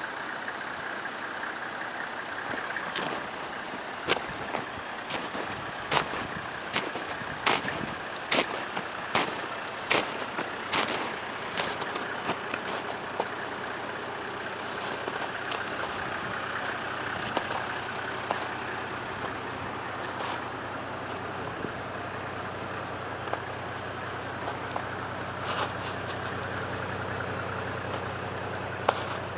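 Toyota Land Cruiser 70-series engine idling steadily. For several seconds in the first half, a run of sharp clicks comes about once a second over it.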